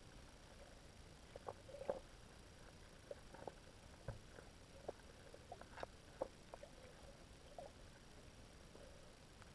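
Faint underwater recording: a low hiss broken by scattered, irregular short clicks and pops, a little over one a second, the loudest about two seconds in and again near six seconds.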